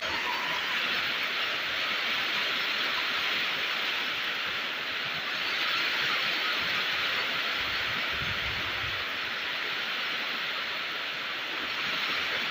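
Steady rain falling, a dense, even hiss with no let-up, and a brief low rumble about eight seconds in.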